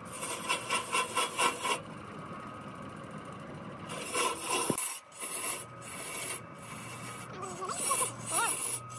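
A cloth pad pressed against a large log spinning on a wood lathe, rubbing and smoothing the turning surface: a rasping rub that pulses about four times a second at first, then runs more steadily with a few short breaks.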